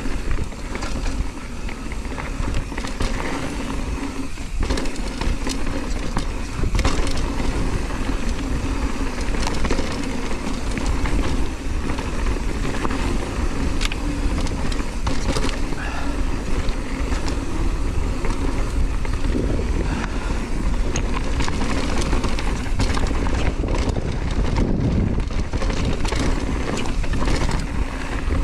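On-One Scandal hardtail mountain bike riding down a dirt and loose-stone trail: a steady rumble and crunch of the tyres on the ground, with frequent sharp clicks and rattles from the bike.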